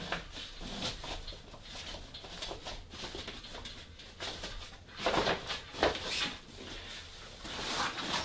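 Nylon fabric rustling and light handling knocks as the loops of a cool bag holder are fed round the end frame of a folding wagon, a little louder about five seconds in.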